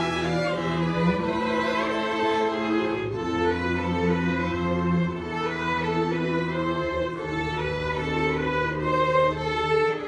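Small string ensemble of violins, cello and double bass playing live, bowed notes held over a bass line that moves every second or so.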